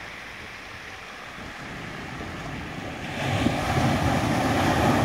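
Surf washing up a shingle beach, with a wave breaking close to shore and its rush growing louder about three seconds in.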